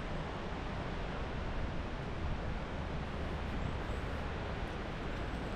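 Wind blowing across the microphone outdoors, a steady, even noise heaviest in the low end.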